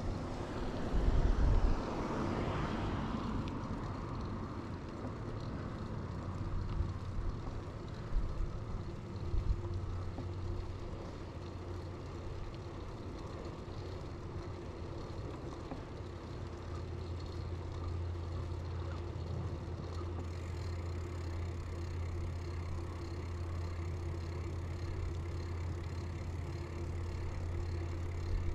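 Steady low rumble of tyres on the road and wind while riding an early-1990s Bianchi Alante mountain bike. A vehicle passes in the first few seconds, and there are a few low thumps from bumps about a second in and again about eight seconds in.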